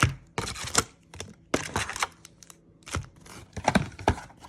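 Foil trading-card packs and their cardboard box being handled: irregular crinkles and sharp clicks, about a dozen in a few seconds.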